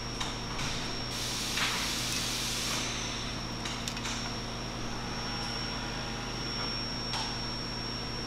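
Steady shop background hum with a constant high whine; a hiss about a second in lasts roughly two seconds, and a few light clicks come from metal motorcycle front-end parts being handled as the lower triple tree is fitted into the frame.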